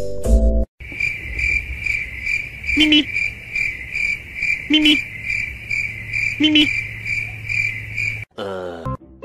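Crickets chirping in a steady, even pulse about twice a second, with a low hooting note three times, roughly two seconds apart. Music plays briefly at the start and comes back near the end.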